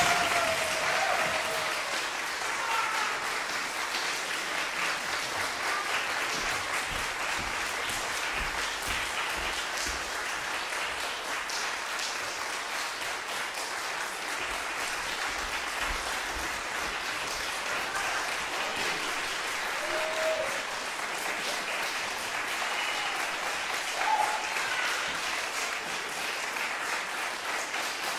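Audience applauding steadily, loudest just at the start, with a few voices calling out near the start and again about 20 and 24 seconds in.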